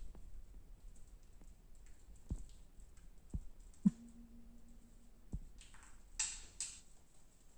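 Quiet handling sounds of a tissue being worked around the navel: scattered light clicks and taps, a brief low hum in the middle, and a short rustle near the end.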